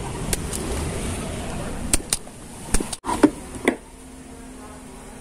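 Sharp clicks and taps of tools working on the power-supply circuit board while a rectifier diode is desoldered and lifted out, over a steady noisy background that falls away a little after three seconds in.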